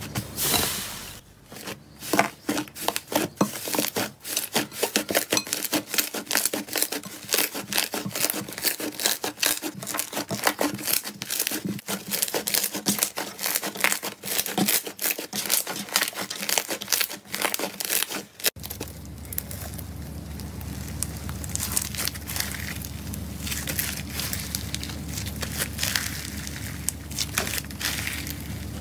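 Slime being pressed and kneaded by hand, making rapid, irregular crackling and popping clicks. About two-thirds through it changes to a finer, denser crackle from a clear, beaded slime, over a steady low hum.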